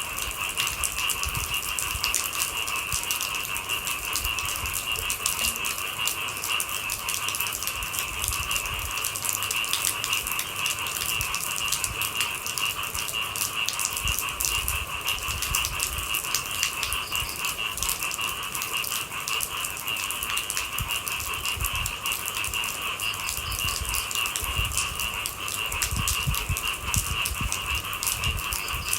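Rain falling as a dense patter of small drops, over a steady, shrill chorus of night-calling animals at two pitches. Low thuds come now and then, most about a third of the way in and near the end.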